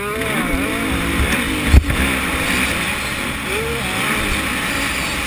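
Yamaha YZ125 two-stroke single-cylinder engine revving as the dirt bike rides a motocross track, heard from the bike's onboard camera; the pitch rises and falls near the start. A sharp thump about two seconds in.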